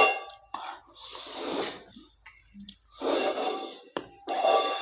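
A person breathing out hard through the mouth in three long, breathy huffs, each about a second long, the panting of someone eating very spicy noodles.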